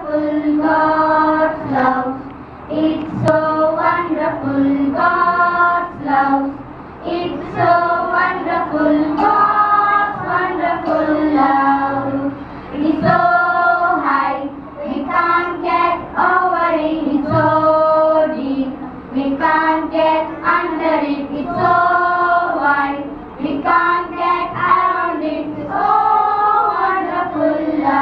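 A group of children singing a Christian worship song together in one melody line, in sung phrases of one to a few seconds with short breaks between them.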